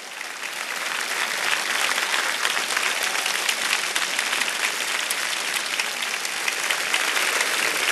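Studio audience applauding, a dense steady clapping that builds up over the first second or so and then holds.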